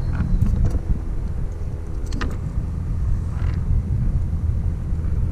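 A steady low rumble, with a few light clicks and rattles from fishing pliers and a rod being handled while a tangled line is sorted out.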